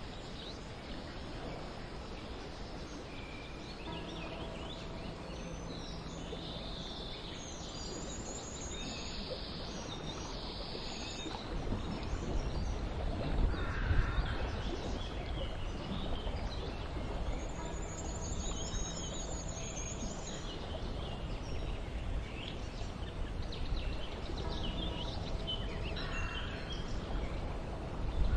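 Outdoor garden ambience: small birds chirping, with a few quick trills, over a steady background hiss. A low rumble joins about twelve seconds in.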